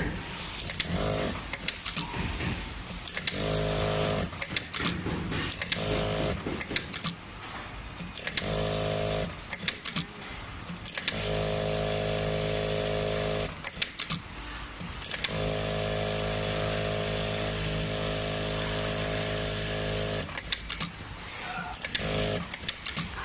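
Richpeace 9910 industrial lockstitch sewing machine stitching in runs with a steady hum: several short bursts, then two longer runs of a few seconds each. Sharp clicks and knocks come between the runs.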